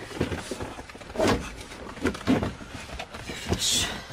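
Plastic dashboard and centre-console trim of a Peugeot Boxer van being handled and worked loose: irregular knocks, clacks and scrapes, with a short high scrape near the end.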